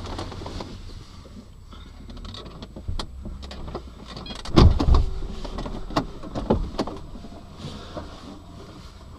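Low steady hum inside a stopped car, with scattered knocks and clicks and a few heavier thumps around the middle.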